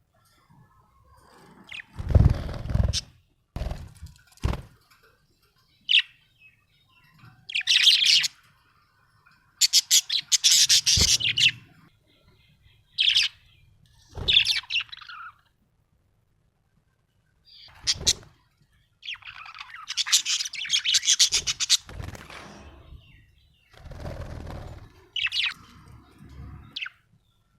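Budgerigar chirping and chattering in irregular bursts, some of them quick rattling runs of notes, with short pauses between. A few low thumps come in among the calls, the strongest about two seconds in.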